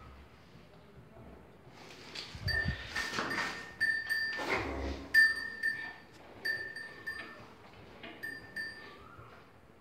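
Cowbell clinking as the cow moves its head while feeding: short metallic dings at the same pitch, mostly in quick pairs, with a couple of dull thumps among them.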